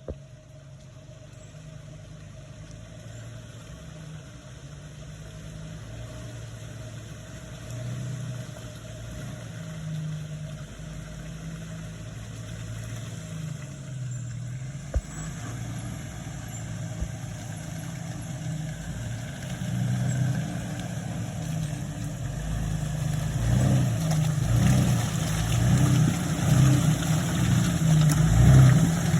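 Jeep TJ engine running, low and steady at first, then growing louder, with the revs rising and falling over the last several seconds. A single sharp click about halfway through.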